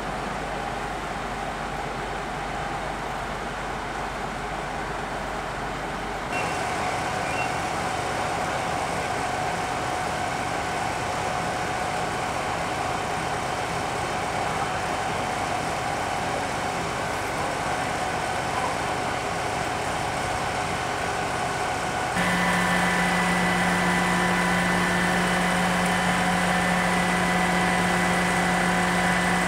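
Steady drone of fire engines running at the scene, with a low engine hum and higher whining tones. It changes abruptly twice and is loudest in the last part, with a strong low tone.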